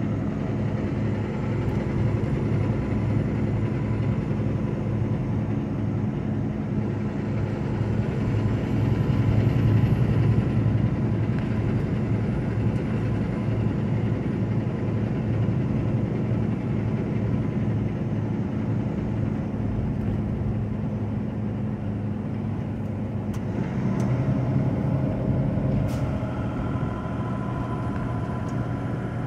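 Semi truck's diesel engine running steadily at highway speed, heard from inside the cab with tyre and road noise. The engine note shifts to a different pitch about three-quarters of the way through.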